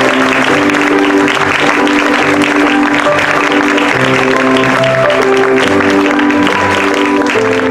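Music with a bass line plays loudly over audience applause at a curtain call.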